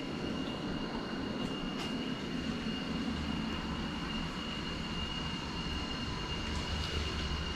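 Steady mechanical background hum with a low rumble and a thin, constant high whine, broken only by a few faint clicks.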